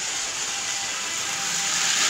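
A toy electric train running around its track with a steady whirring hiss that grows louder near the end as it comes round.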